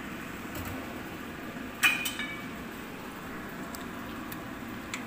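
A spoon clinks sharply against a seasoning container about two seconds in while salt is spooned out, with a short ring and a lighter second clink just after. A few faint ticks follow over a steady low background hum.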